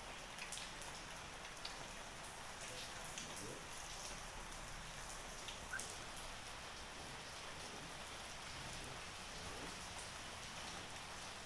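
Steady rain falling, an even hiss with scattered small ticks of drops.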